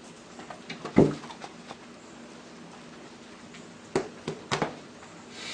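Cat batting and pouncing at a mirror: a scatter of light taps with one loud thump about a second in, then three more knocks near the end, over a steady low hum.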